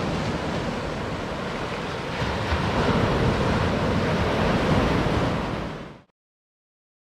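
Ocean surf washing up onto a sandy beach in a steady rush, fading out about six seconds in.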